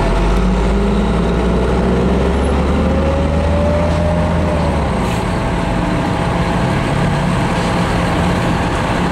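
Car driving, engine and road noise heard from inside the cabin, with a heavier low rumble for the first five seconds or so.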